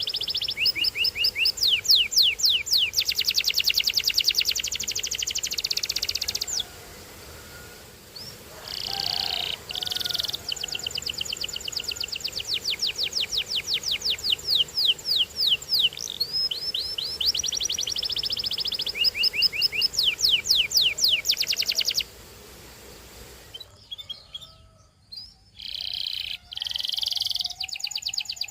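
Domestic canary singing: long trills of rapidly repeated high notes, broken by two short pauses and a few harsher notes.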